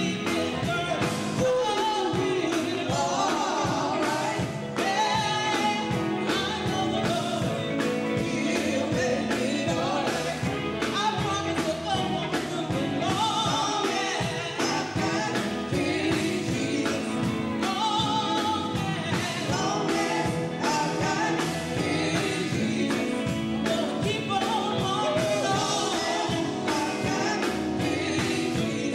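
Live gospel group of female vocalists singing together, backed by a drum kit, electric guitar and bass guitar, with a steady drum beat.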